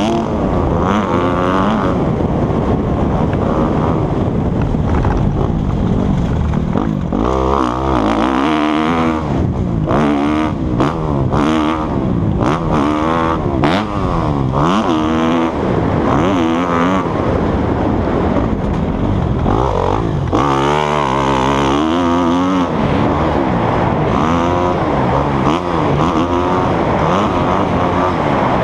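Dirt bike engine being ridden hard on a motocross track, its revs rising and falling over and over as the throttle opens and closes.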